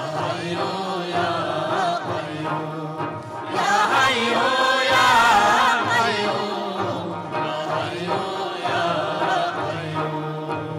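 A Burushaski ginan (devotional song) sung by lead singers and a chorus, accompanied by plucked long-necked lutes. The voices swell louder and higher about four seconds in, then ease back.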